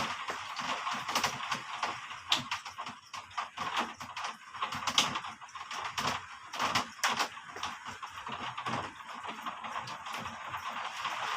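Rain falling, with drops striking a hard surface as irregular sharp taps over a steady hiss.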